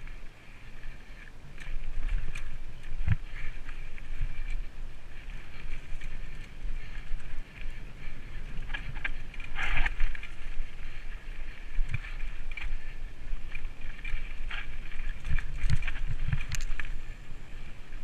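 Mountain bike rolling over a dirt singletrack: steady tyre rumble and wind noise, with the bike's chain and frame rattling and knocking over bumps several times, most often near the end.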